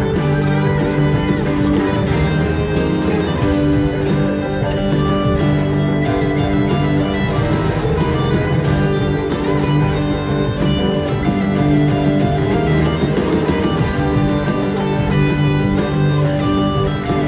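Live rock band playing continuously, with guitars to the fore.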